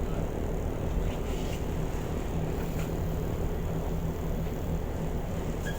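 Steady low drone of a car ferry's engines under way, with an even hum and a wash of noise.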